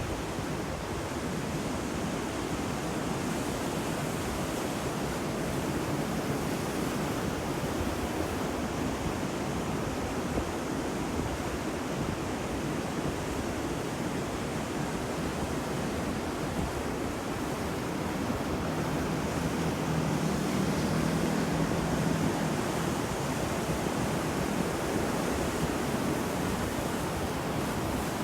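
Sea waves washing onto a shore: a steady rush of surf that swells slightly about two thirds of the way through.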